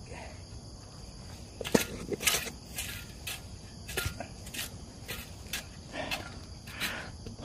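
Soil being mixed and scraped: a dozen or so uneven rustling strokes, starting a couple of seconds in, about every half second, over a steady chorus of insects trilling.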